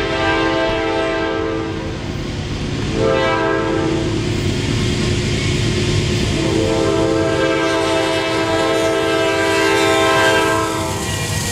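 Approaching train's locomotive air horn blowing for a grade crossing in several long, steady multi-note blasts, with a short break about two seconds in and the last long blast ending shortly before the end. Under the horn is a low rumble of the oncoming train.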